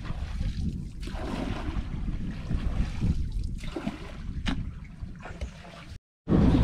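Water splashing and sloshing as a long pole is driven into the water to push a small boat along, in uneven surges, with a sharp click about four and a half seconds in. The sound cuts off suddenly near the end.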